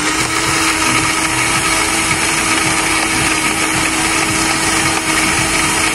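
Countertop blender running at a steady speed, its motor giving a steady whine as it blends iced coffee (instant coffee, water and ice).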